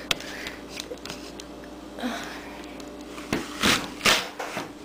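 Handheld apple corer-slicer being pressed down through a peeled apple on a wooden table, cutting out the core and splitting it into wedges: a cluster of three loud, short noises a little over three to about four seconds in.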